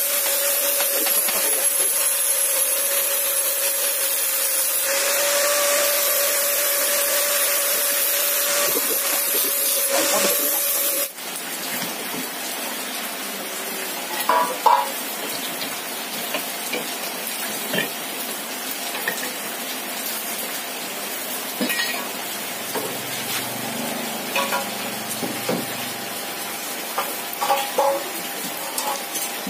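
A steady hum with a hiss that cuts off abruptly about eleven seconds in. After that come scattered light metallic clicks and clinks of thin steel rods being laid across a wooden jig frame.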